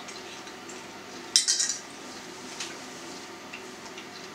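A metal fork set down on a ceramic plate: one sharp clink with a brief ring about a second and a half in, and a fainter tap about a second later.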